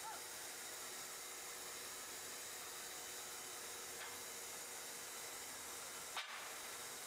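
Faint, steady hiss with one short click about six seconds in.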